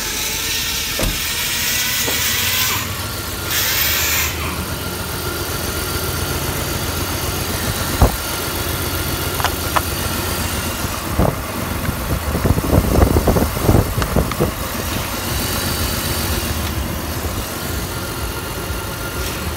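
BMW M52TU B25 2.5-litre inline-six petrol engine idling steadily. A hiss comes over it in the first few seconds, then a few sharp clicks, and a short clatter of knocks about twelve to fourteen seconds in.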